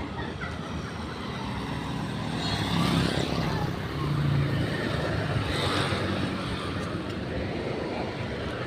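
Bus engine running amid road traffic as vehicles pass. It swells louder about three seconds in and again between four and six seconds.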